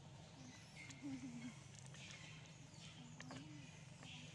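Faint ambience: a few short, low, wavering murmurs from a voice, a couple of soft clicks, and a steady low hum.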